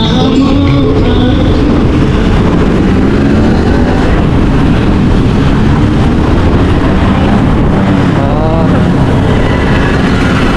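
Loud, steady vehicle ride noise in traffic, a dense low rumble that holds level throughout, with a brief wavering tone about eight seconds in.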